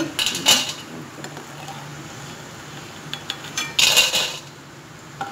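Metal spoon scraping and clinking against a pan of frying sev as the strands are stirred in the hot oil: a few clinks about half a second in and a louder, longer scrape about four seconds in.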